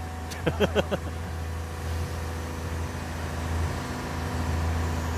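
Caterpillar 320 Next Gen excavator's diesel engine running steadily as its boom and bucket move on the trailer, with a faint steady whine over the low drone.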